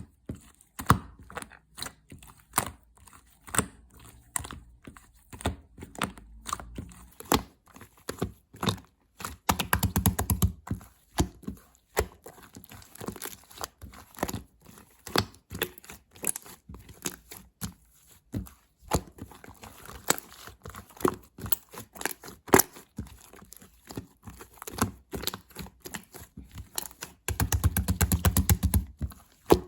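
Chocolate slime being squished, poked and stretched by hand, making sticky clicks and pops. About ten seconds in and again near the end it breaks into runs of rapid crackling pops.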